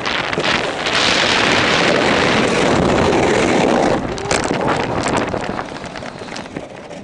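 Wind rushing over the microphone and a sled hissing over packed snow at speed. About four seconds in the rush cuts off and a run of sharp knocks and crunches follows as the sled spins out into the snow, then it goes quieter.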